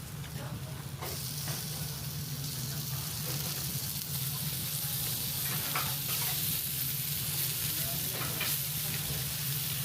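Beef sizzling on a tabletop grill: a steady, dense hiss with a few light clicks, over a steady low hum.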